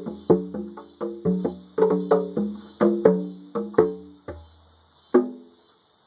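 A pair of conga drums played with bare hands in a quick rhythm of ringing open tones. The playing thins out after about four seconds and ends with one last single stroke a second later. Cicadas buzz steadily underneath.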